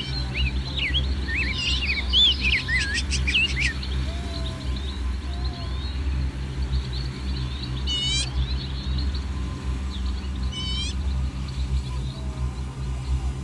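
Small birds chirping in a quick flurry of short, rising and falling calls, then two brief rapid trills later on, over a steady low rumble.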